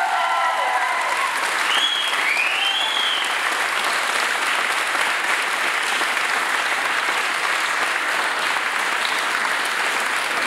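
Audience and performers applauding steadily, a dense clapping that holds at the same level, with a couple of short high calls from the crowd about two seconds in.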